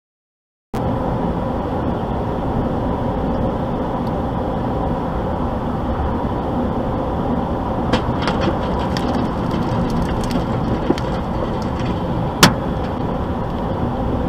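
Steady road and engine noise inside a moving truck's cab, picked up by a dash cam, with a few faint ticks around eight seconds in and one sharp crack about twelve and a half seconds in.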